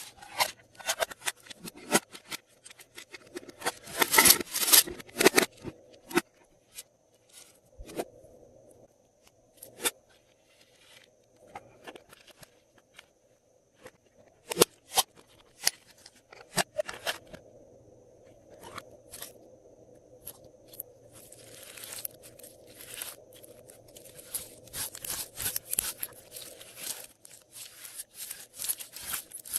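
Glossy slime being mixed and worked by hand: sticky clicks, pops and crackles in irregular clusters, with quieter gaps, thickening into steady crackling near the end.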